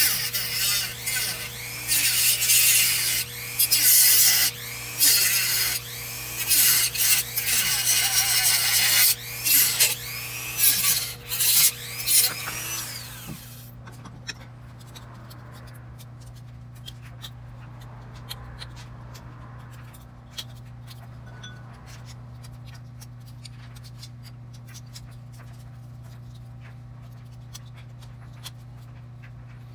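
Rotary tool with a cutoff wheel cutting through a white plastic ring held in a bench vise, in a string of loud bursts with the motor's pitch swooping as the disc bites and eases off. After about thirteen seconds the tool stops, leaving only faint clicks and rustling as the cut plastic piece is handled.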